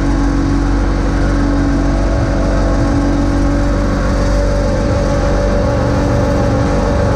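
John Deere X585 garden tractor's engine running at a steady speed with a constant hum as the tractor pushes snow with its front blade.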